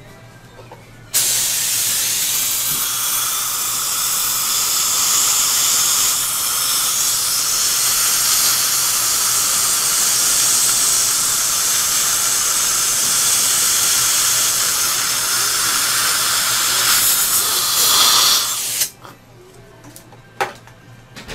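Dental air-water spray and suction hissing steadily in the patient's mouth, starting suddenly about a second in and cutting off sharply near the end, followed by a few light clicks of instruments.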